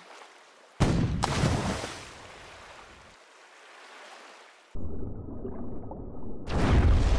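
Water noise as a model battleship is hit and sinks in a pond: a sudden loud splash-like hit about a second in that fades over a couple of seconds, then a low rumbling of water and bubbles as the hull goes under, swelling loudly near the end.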